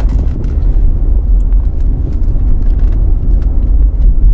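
Steady low rumble of a moving car, road, engine and wind noise together, with a few light clicks scattered through it.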